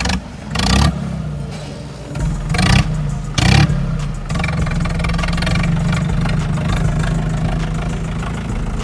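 Mahindra 575 tractor's diesel engine revved three times in quick short blips in the first four seconds, then running steadily.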